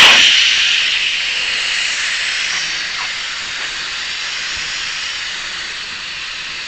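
Air hissing out of a backhoe tire's open valve stem with the Schrader valve core removed, the tire deflating. The hiss starts loud and fades steadily as the pressure drops.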